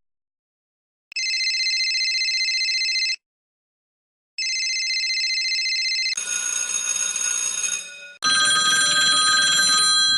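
Telephone bell ringing with a fast trill: two rings of about two seconds each with a short gap between them. About six seconds in it changes to a different ringing sound, and just after eight seconds to another ring with a different set of tones.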